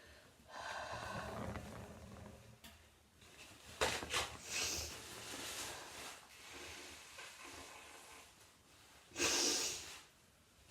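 A person coughing and blowing their nose, in separate noisy bursts: one lasting about two seconds from about half a second in, a cluster of sharp ones around four seconds in, and a short loud one near the end.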